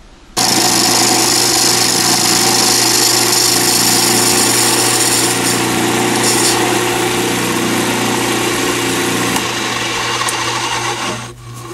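Lathe motor running with an oval skew chisel shaving a zebra-pattern acrylic resin pen blank: a steady cutting hiss over the motor's hum. It starts suddenly about half a second in and stops near the end. The cut is smooth, with no chipping-out.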